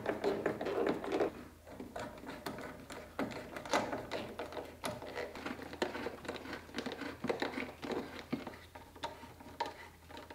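Hose clamps on an intake pipe being tightened by hand with a small driver: irregular light clicks and taps of the tool on the clamp screws.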